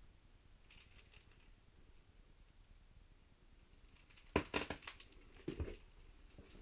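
Footsteps crunching and knocking on a debris-strewn floor: faint crinkling about a second in, then a few sharp crunching steps about four seconds in and another about five and a half seconds in.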